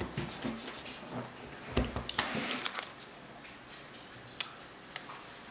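Hands smashing and patting kinetic sand on a wooden table: a series of soft knocks over the first few seconds with a brief scraping rustle among them, then only a couple of light clicks.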